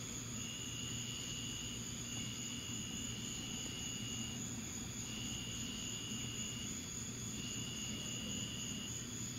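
Night insects trilling: a high trill in stretches of one to two seconds with short breaks, over a steady higher whine and a low steady hum.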